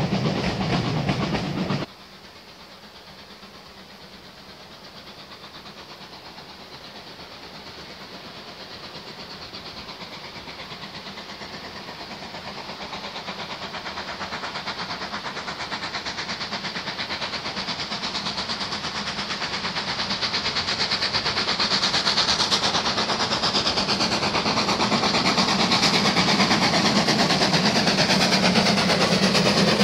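Steam locomotive hauling a passenger train, approaching and growing steadily louder over nearly half a minute. Before that, about two seconds of a louder train sound cut off suddenly.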